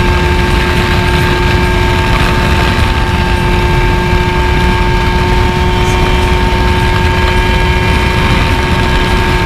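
Two-stroke Vespa scooter engine run flat out at a steady high pitch, ridden hard enough to risk seizing it, with wind rumbling on the microphone.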